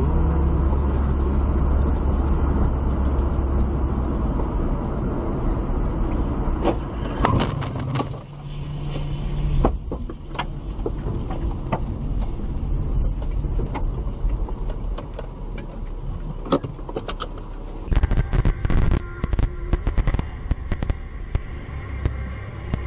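Car driving on the road, heard from inside the cabin: a steady low engine and tyre rumble, with a few sharp knocks in the middle. About three quarters of the way in the sound changes abruptly to a thinner, uneven traffic noise.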